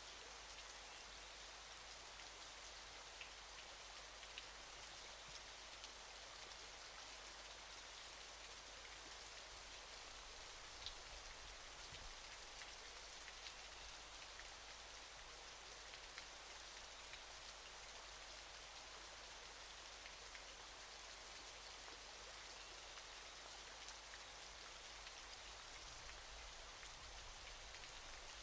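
Faint, steady hiss of falling water, with scattered light droplet ticks.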